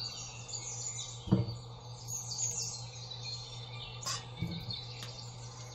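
Birds chirping faintly in the background over a steady low hum. A knock comes about a second in and a lighter tap around four seconds, as ricotta is spooned into a stainless steel mixing bowl.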